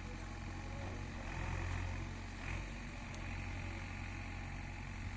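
Diesel engine of a JCB earthmoving machine running steadily with a deep hum, swelling slightly in level for a moment about a second and a half in.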